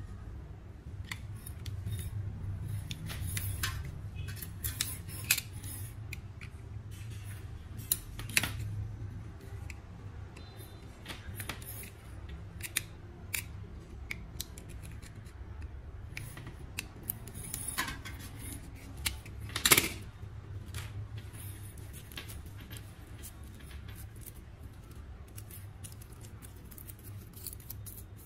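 Utility knife blade scraping and slicing through the rubber outer jacket of a coaxial cable: a series of short cutting clicks and scrapes, the sharpest about two-thirds of the way through, over a steady low hum.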